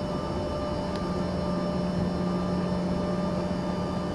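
Cabin noise of an Embraer ERJ-145 taxiing, heard from inside the cabin: the steady low hum and thin high whine tones of its rear-mounted Rolls-Royce AE 3007 turbofans, over a steady rush of air.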